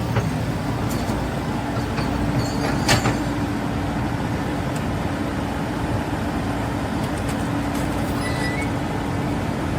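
Caterpillar 395 excavator's diesel engine running steadily with a constant hum, with a couple of sharp knocks, the loudest about three seconds in.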